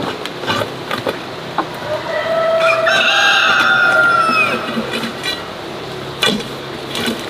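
A rooster crows once, a long call of about two and a half seconds that falls in pitch at the end. A few sharp chops and scrapes of a hoe striking grassy soil come before and after it.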